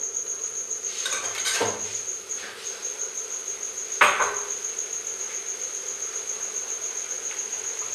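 A metal utensil clatters against a steel kadai about a second in, then strikes it once sharply, with a short ring, about four seconds in. A steady high-pitched trill runs underneath throughout.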